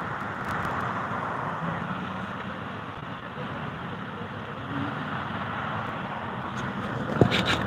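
Steady hum of road traffic, with one sharp knock about seven seconds in.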